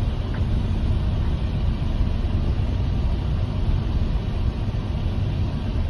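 Steady low rumble of a Toyota passenger van's engine and road noise, heard inside the cabin.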